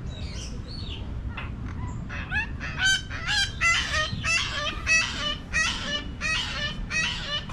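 A bird calling over and over in a rapid run of short calls, about two to three a second, starting about a second in and growing louder.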